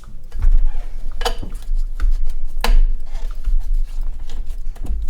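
Metal hand tools clinking and knocking while a 15 mm pulley bolt on the engine's drive-belt pulley is done up: three sharp clinks, the first about a second in, over a steady low rumble.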